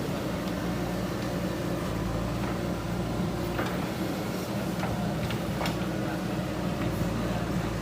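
JCB 3DX Super backhoe loader's diesel engine running steadily under work, with a few light knocks over it.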